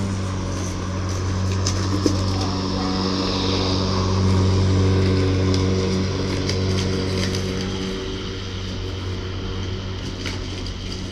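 EGO cordless electric lawn mower running with a steady hum, with a few faint clicks scattered through it.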